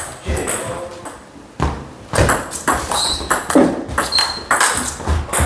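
Table tennis rally: the plastic ball clicks sharply off the paddles and the table, about every half second.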